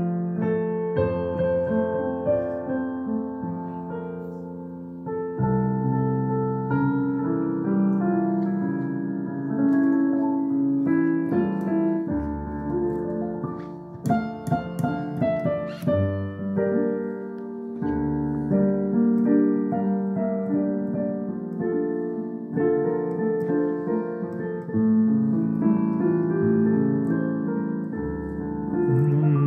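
Piano played solo: a romantic melody over held chords and bass notes.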